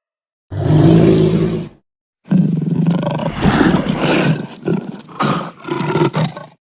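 A big-cat cub roaring: one roar of about a second, then after a short pause a longer run of rough roars and growls that break up into shorter calls near the end.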